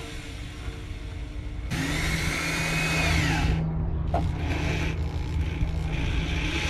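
Power drill driving screws through a metal table-leg base flange into a wooden tabletop. The motor runs in several spurts with short pauses, its whine falling in pitch about three seconds in, with a click about four seconds in.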